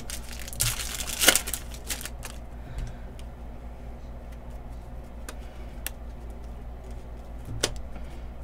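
Foil wrapper of a Panini Prizm football hobby pack crinkling and tearing open, loudest in the first two seconds or so. Then the stack of cards is handled more quietly, with a few sharp clicks.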